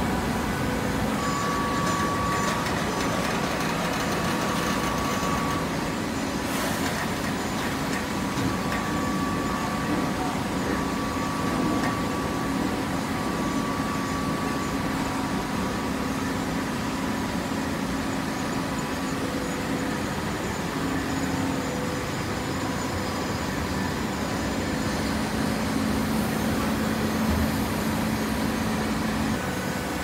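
Automatic horizontal baler running, its hydraulic power unit making a steady hum with a few held tones over it.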